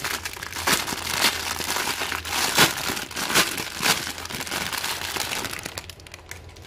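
Thin clear plastic bag crinkling and crackling as hands pull a t-shirt out of it, with the sharpest crackles around the middle; it dies down near the end.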